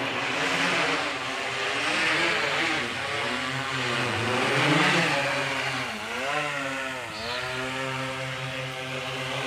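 DJI quadcopter drone's propellers buzzing as it comes down to land, the pitch sliding up and down several times as the motors adjust, then holding steady near the end.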